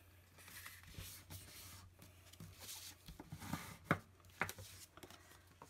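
Faint rubbing and scraping of white cardstock as it is folded in half and the fold is pressed flat by hand, the card sliding on grid paper. A couple of sharp ticks come near four seconds in.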